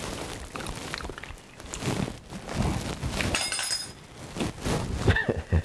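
Kitchen handling sounds while porridge is tasted off a spoon: small knocks and clicks, a ringing metal clink about three and a half seconds in, and a couple of low knocks near the end.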